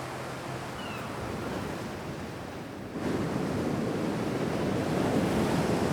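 Ocean surf washing on a shore: a steady wash of waves that swells louder about three seconds in.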